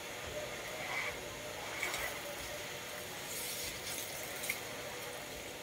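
Water from a garden hose spraying and spattering onto an elephant's back, a steady hiss of water with a few brief sharper sounds.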